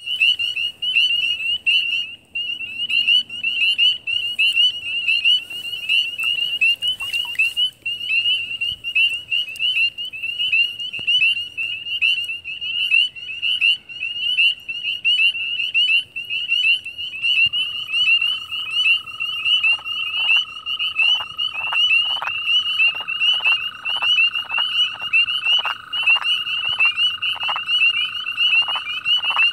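Wood frog held in the hand giving its release call: short clucks about twice a second from about two-thirds of the way in. Underneath is a loud, continuous, high-pitched chorus of many frogs calling.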